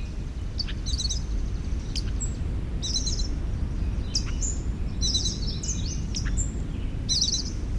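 Several songbirds singing: short high chirping and trilling phrases about every two seconds, mixed with brief whistled notes, over a steady low rumble of background noise.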